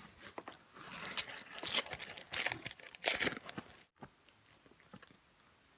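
Foil trading-card pack crinkling and being torn open in bursts for about two and a half seconds, then near quiet.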